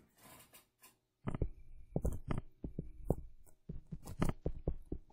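Stylus writing on a pen tablet: an irregular run of quick taps and dull knocks, starting about a second in, as the pen strokes hit the surface.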